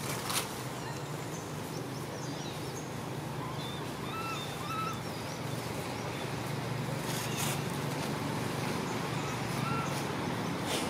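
Infant long-tailed macaque giving short, arched whimpering calls a few times, about four and five seconds in and again near the end, over steady outdoor background noise with a low hum.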